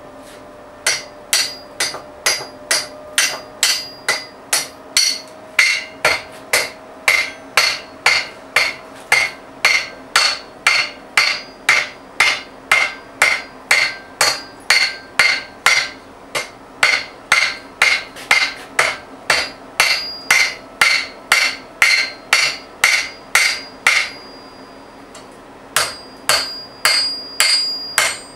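A hand hammer beats red-hot steel held in tongs over the horn of an anvil, about two blows a second. Each blow leaves a short metallic ring. The blows stop briefly a few seconds before the end, then start again.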